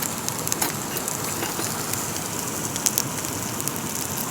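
Pork belly sizzling and crackling in a hot pan, a steady hiss with scattered pops, with rain falling.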